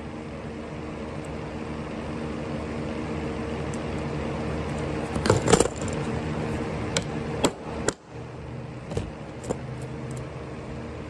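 Metallic clinks and knocks of tools and parts being handled during work on a CNC machine: a cluster of them about halfway through, then several single ones, over a steady hum.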